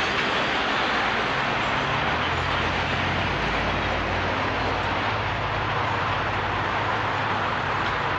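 Chicago 'L' rapid-transit train running, a steady loud rush of wheel and track noise with a low hum that shifts in pitch a few times.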